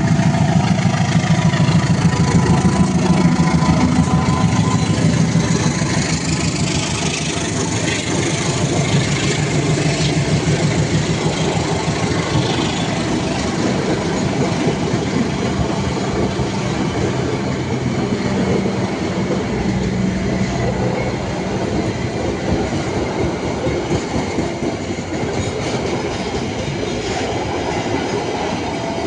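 Diesel-hauled train passing close by: the locomotive engine drones loudly for the first few seconds, then the carriages roll past with steady wheel-on-rail clatter that slowly fades.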